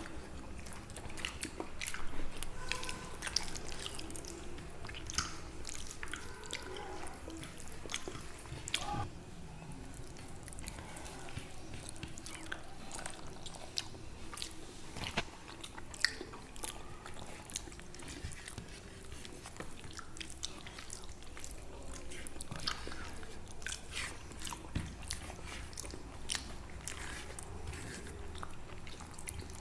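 People chewing and eating at close range, with many short wet mouth clicks and smacks scattered throughout.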